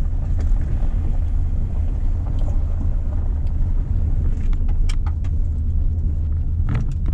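Car driving on a gravel road, heard inside the cabin: a steady low rumble of engine and tyres, with a few sharp clicks and ticks in the second half.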